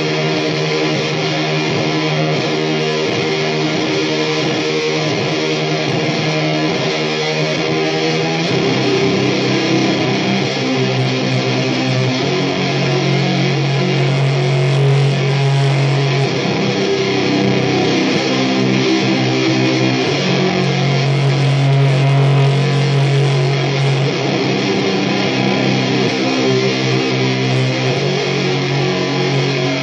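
Electric guitar playing a loud, noisy drone riff of long-held low notes, the notes changing every few seconds.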